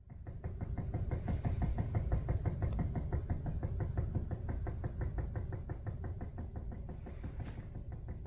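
A person making a rapid, even run of clicks or taps, about eight a second, kept up without a break. It is likened to sending Morse code and to a motor running.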